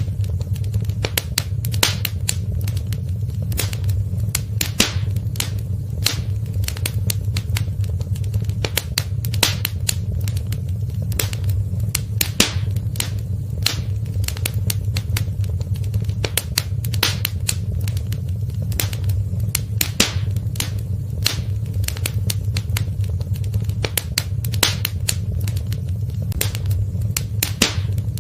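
Fire crackling in a fireplace: irregular sharp pops and snaps, several a second, over a steady low rumble.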